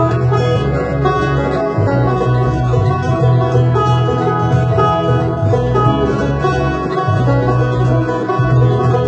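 Banjo being picked in a folk-blues instrumental passage, played along with a band whose steady bass line runs underneath.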